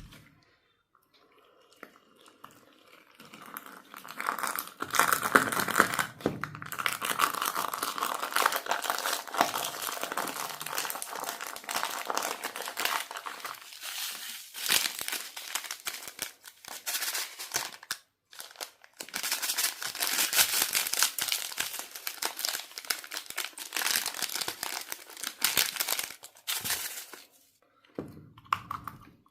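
Slime with candies mixed in being squeezed and worked by hand, giving a dense crinkling and crackling that starts a few seconds in, pauses briefly twice and dies away near the end.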